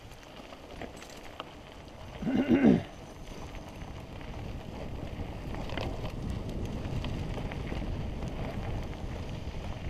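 Mountain bike rolling fast over a dirt singletrack: steady tyre rumble and rattle with wind noise on the helmet camera, getting louder partway through. About two seconds in there is a brief loud wavering cry.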